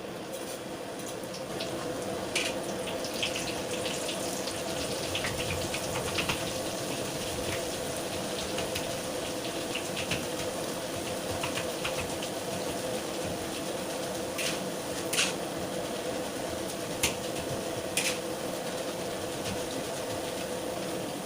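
Steady rushing of running water with a low hum under it, and a few sharp clinks scattered through, the loudest in the second half.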